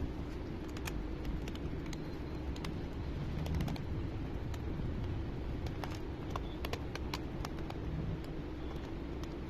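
Scattered light clicks and taps from handling a laptop and an SSD, over a steady low hum.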